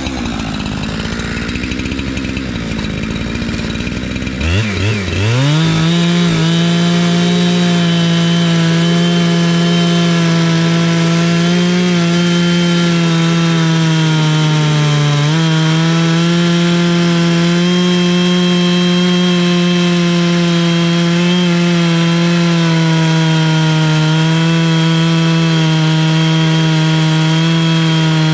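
Two-stroke chainsaw on an Alaskan chainsaw mill running at a low speed, then throttled up at about four and a half seconds to full speed. It holds a steady high-pitched note while ripping a log lengthwise into 1-inch boards, with a brief dip in pitch about halfway.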